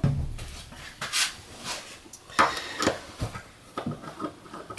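Handling noise from a plunger-type limit switch and a screwdriver on a wooden bench: a dull knock at the start, then light clicks and taps about every half second as the screwdriver is set to the switch's cover screws.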